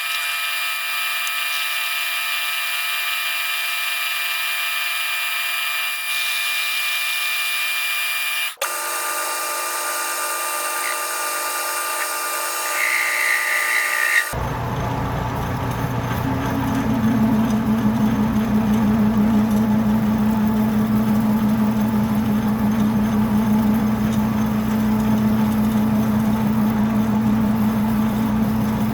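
A metalworking machine tool runs steadily, cutting copper stock, with a constant motor whine. The sound changes abruptly twice, about 8.5 and 14 seconds in. After the second change it is louder, with a steady low hum and drone.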